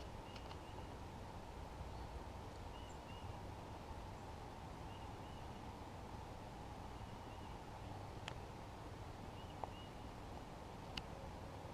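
Faint ambient background picked up by a GoPro Hero 3+ microphone inside its housing with the skeleton backing, which makes it sound a little muffled: a steady low hiss and hum, with a short high double chirp every couple of seconds and a few sharp clicks, the clearest about eight and eleven seconds in.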